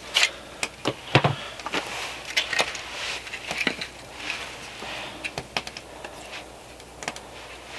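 Irregular light clicks and knocks as pieces of firewood are handled, with one heavier wooden thump about a second in.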